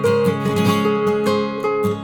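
Background music: acoustic guitar, plucked and strummed notes at a steady pace.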